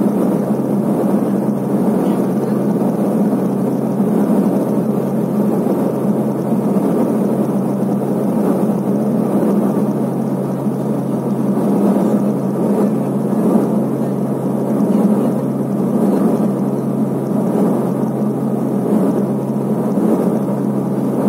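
Let L-410 UVP-E20 twin-turboprop engines and propellers heard from inside the passenger cabin on approach: a steady, loud drone with a constant low propeller hum.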